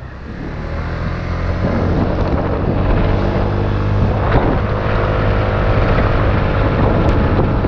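An engine running steadily and loudly, with a low hum, fading up over the first couple of seconds.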